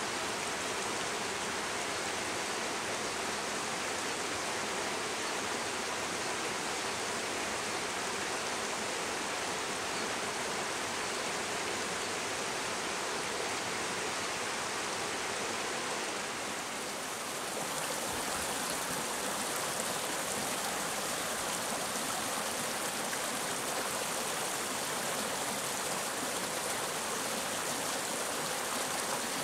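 Mountain stream running over rocks, a steady rush of water. About halfway through it dips briefly and comes back with a brighter hiss.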